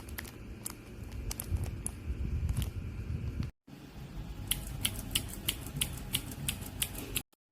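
Cherry MX mechanical keyboard switches on a keychain switch tester pressed over and over, giving a fast, irregular run of sharp clicks over low handling noise. The clicking breaks off for a moment about halfway through.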